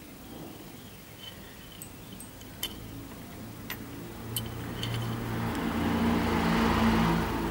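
A few light metallic clicks from the sewing machine's thread tension discs being taken off and handled. A low mechanical drone grows steadily louder through the second half and becomes the loudest sound.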